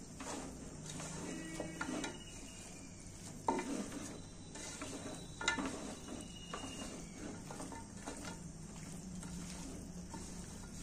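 Raw mutton pieces coated in oil and spices being mixed by hand in an aluminium pot: wet squishing and shuffling of the meat, with a few sharper knocks against the pot, the loudest about three and a half and five and a half seconds in.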